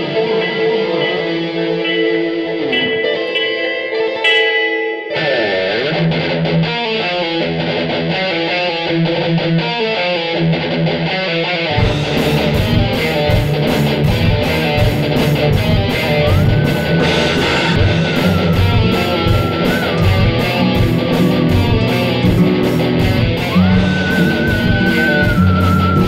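Heavy metal instrumental passage by a band with two guitars and drums. Guitars play alone at first, changing figure about five seconds in; the drums and full band come in at about twelve seconds. Over the full band, a lead guitar holds long notes with slides.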